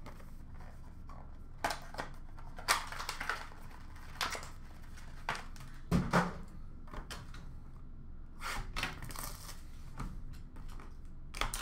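Hockey card packs being handled and opened: intermittent crinkling and rustling of plastic wrappers, with scattered light clicks and taps as cards and packs are set down.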